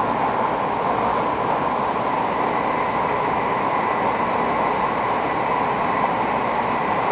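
Steady running noise heard inside the cabin of an N700 series 8000 Shinkansen train travelling at speed: an even rushing noise with a faint steady high tone running through it.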